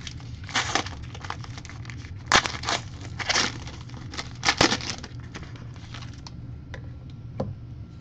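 Foil trading-card pack being torn open and its wrapper crinkled in a string of sharp rustling bursts over the first five seconds. After that it goes quieter, with a few faint clicks.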